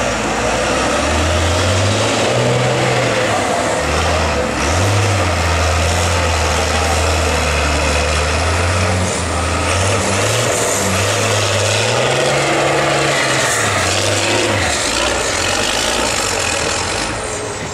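Diesel engine of a MAN off-road trial truck labouring as it crawls up a rocky quarry slope, its note rising and falling again and again as the driver works the throttle.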